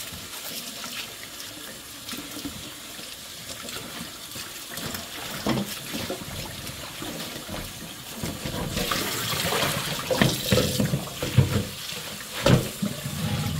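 Kitchen tap running into a stainless steel sink while spinach is swished and rinsed by hand in a bowl of water. The splashing grows louder a little past halfway, with a few sharp knocks against the sink and bowl.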